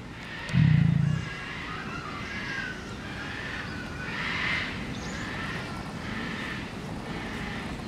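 Bird calls repeating in short bursts about once a second, over a steady background, with a loud low thump or rumble lasting about half a second near the start.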